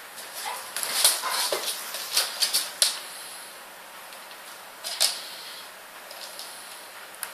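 Two dogs, a Rottweiler and a Staffordshire Bull Terrier, play-wrestling: a quick run of short clicks and scuffles over the first three seconds, another burst about five seconds in, then quieter.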